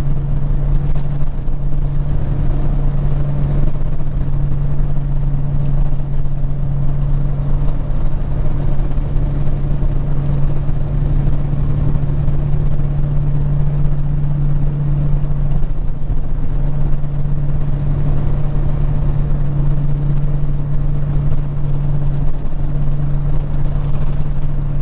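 Peterbilt 379 truck's diesel engine and tyres running steadily at highway speed, a constant drone with a strong low hum.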